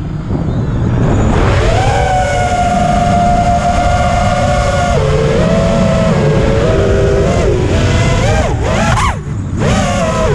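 5-inch FPV quadcopter's four T-Motor Velox V2 2306 brushless motors and propellers whining, pitch rising and falling with throttle. The whine climbs over the first couple of seconds, holds, steps down, then falls sharply and dips about nine seconds in before climbing again, over low wind rumble on the drone's onboard camera mic.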